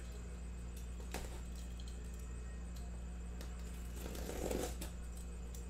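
Box cutter slicing the tape seam of a cardboard case: a light click about a second in, then a short scraping rustle about four seconds in, over a steady low electrical hum.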